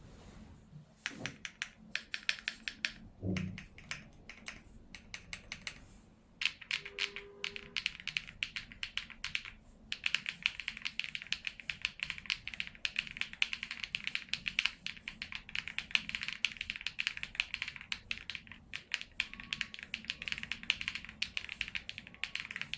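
Typing on a DREAM67 65% mechanical keyboard with a CNC aluminium case: rapid, continuous keystroke clacking. It is sparser at first, pauses briefly about ten seconds in, then runs fast and steady.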